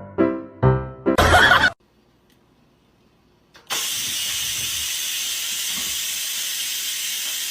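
Piano music ends about a second in with a short burst of noise. After a near-silent pause, a loud, steady hiss starts about halfway through and holds level.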